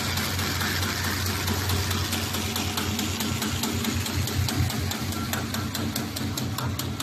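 RZJD G350J flat-bottom paper bag machine running at production speed: a steady low hum with a regular, rapid clicking of its mechanism that grows more distinct near the end.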